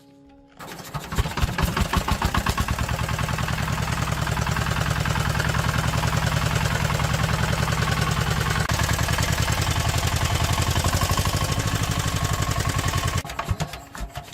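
D12 single-cylinder diesel engine running with a steady, rapid firing beat. It starts about half a second in, then shuts off near the end, giving a few slowing beats as it dies.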